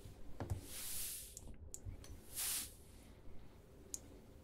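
Faint scattered taps and clicks of fingers on two smartphones and the table they lie on, with two short soft hisses, the louder one about two and a half seconds in.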